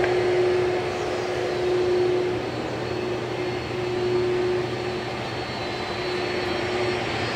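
Airbus A330-303's twin GE CF6-80E1 turbofans running at low taxi power, a steady hum with a sustained whine.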